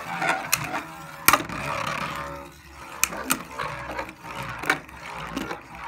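Two Beyblade Burst spinning tops whirring across a plastic Beystadium, with several sharp clacks as they strike each other.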